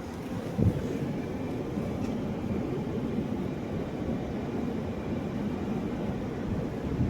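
2022 Jeep Grand Cherokee idling with the air conditioning switched on during a refrigerant recharge: a steady low rumble, with a single thump a little under a second in.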